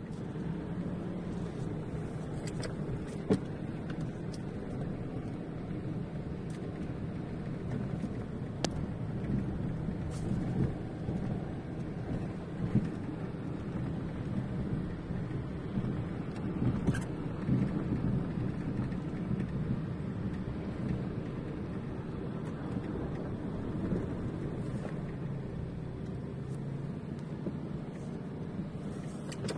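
A vehicle engine running steadily with a low rumble, with a few sharp knocks now and then.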